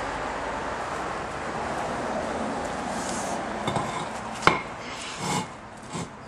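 Pavers knocking together as they are set down on a stack: about four hard clacks in the second half, the sharpest with a short ring. Before that, a steady rushing noise fades out after about four seconds.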